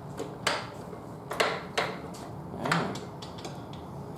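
Metal tyre lever and tyre-changing tool scraping and clinking against a steel spoked motorcycle rim, four or so short scrapes and knocks, as the tyre bead is pried up and struggles to go over the rim.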